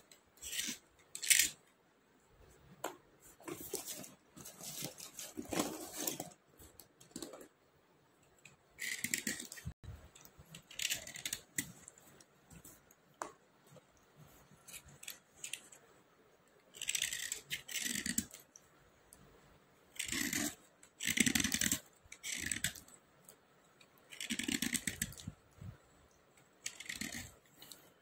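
Dry natural-stone slate pencils being scraped, a gritty scrape in short strokes of about half a second to a second, repeated at irregular intervals. Light clicks of the pencils knocking together fall between the strokes.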